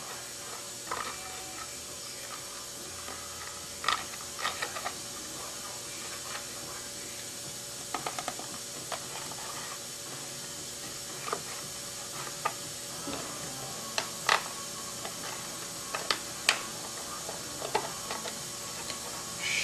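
A small knife blade scraping and clicking against a plastic aircraft wingtip nav lens as the screw holes are reamed and deburred by hand. The sound is irregular sharp clicks and short scrapes over a steady hiss.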